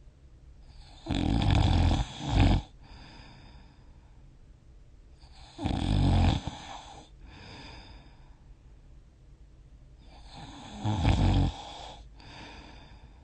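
A sleeping person snoring: three loud, rough snores about four to five seconds apart, each followed by a softer breath.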